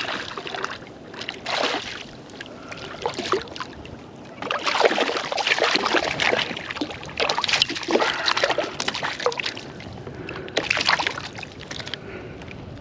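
Water splashing and sloshing beside a kayak, with scattered knocks, as a small hooked fish is brought in. The splashing comes in bursts, busiest from about a third of the way in until near the end.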